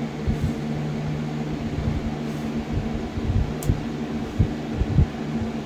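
A steady low mechanical hum, like a running fan, with several soft low thumps scattered through it and one brief high tick a little after halfway.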